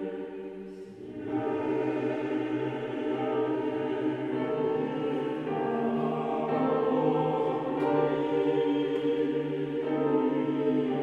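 Mixed choir of men and women singing held chords that change every second or two, with a brief break about a second in before the voices come back in.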